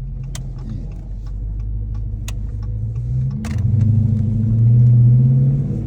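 2019 Dodge Charger R/T's 5.7-litre HEMI V8, fitted with a JLT cold air intake, running steadily. About three seconds in its note rises and grows louder as the engine is revved, then eases near the end. A few short clicks are heard over it.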